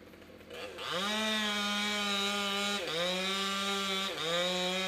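Two-stroke chainsaw revving up about half a second in and running at high throttle, its pitch dipping briefly twice.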